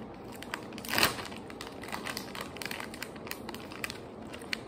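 Plastic snack bag crinkling as it is handled, with one louder rustle about a second in and scattered small crackles after.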